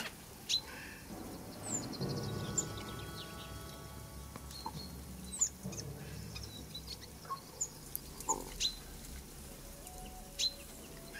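Small songbirds calling: scattered short, high chirps and brief falling whistles, a few seconds apart.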